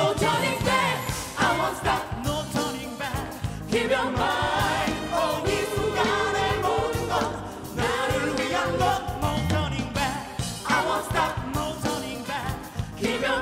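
Live pop band playing a song, with several singers singing the chorus together over the band.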